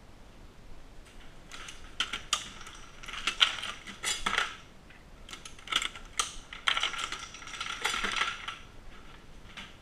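Irregular metallic clicks and clinking of small parts at a Dillon SL900 shotshell reloading press, in several short clusters with pauses between.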